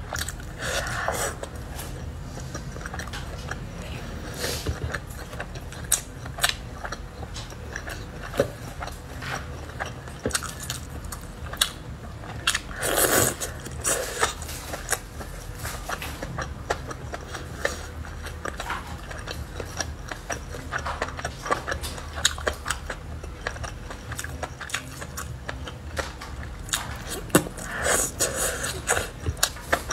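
Close-miked eating of grilled skewered food: wet biting, chewing and crunching with frequent sharp mouth clicks, and a few louder bites about a second in, around the middle and near the end.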